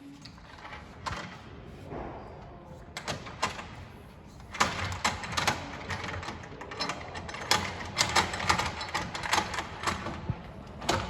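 Metal clicks, knocks and rattles of a roof-mounted bike carrier's T-bolts being slid along the rack's T-tracks as the carrier is moved into place, few at first and then coming quickly from about halfway through.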